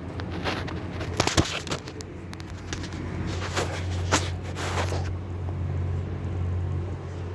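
Engine of a Mercedes-Benz concrete pump truck running steadily, with a scatter of sharp clicks and short hissing bursts during the first five seconds, after which the steady engine sound continues alone.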